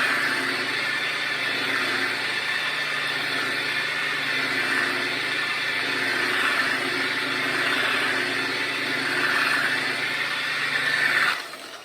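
Electric paint polisher with a foam pad running at its slowest speed, worked back and forth over polishing compound on car paint; its steady whine swells and eases in slow waves, then the motor cuts off suddenly near the end.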